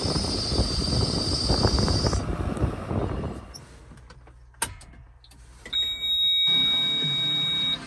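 Komatsu WA270 wheel loader running, with wind on the microphone. After a quieter moment and a click, a steady high-pitched electronic buzzer sounds for about two seconds as the cab monitor powers up on key-on, then cuts off.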